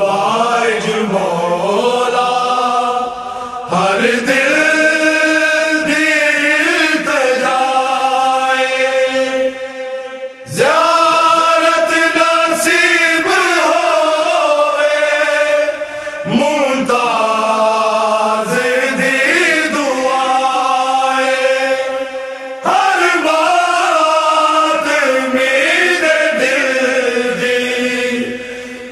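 A voice chanting in long, drawn-out melodic phrases of about six seconds each, gliding between held notes, with a short break for breath between phrases.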